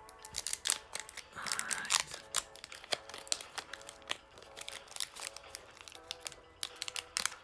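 Foil wrapper of a Pokémon Lost Thunder booster pack crinkling and tearing as it is pulled open by hand: a rapid, uneven run of sharp crackles, busiest about two seconds in. Background music with held tones plays underneath.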